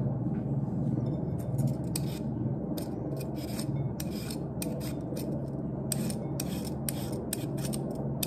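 Vegetable peeler scraping down a raw carrot in quick repeated strokes, about two or three a second, over a steady low hum.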